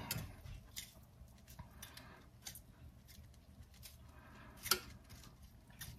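Faint, scattered clicks of metal kitchen tongs as browned pheasant pieces are laid into a pan of onions and broth, with one louder tap a little before the end.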